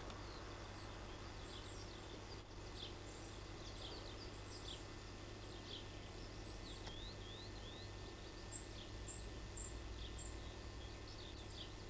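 Small birds chirping and twittering faintly, many short quick calls with little rising and falling sweeps, over a steady low hum.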